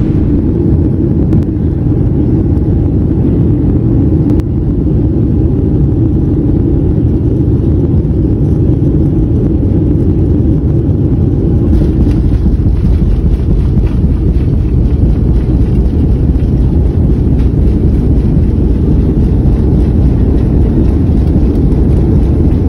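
Loud, steady low roar of an airliner's engines and airflow heard from inside the passenger cabin while one engine is failing and trailing long flames from its exhaust.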